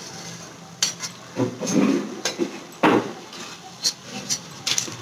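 Steel slotted skimmer clinking and scraping against an iron kadhai and a steel plate while fried vadas are lifted out of the oil: a series of sharp metallic clinks, the loudest about three seconds in.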